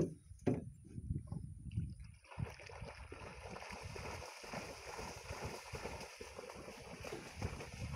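Water lapping and gurgling close by, with a sharp knock right at the start and another about half a second later. A steady hiss joins about two and a half seconds in.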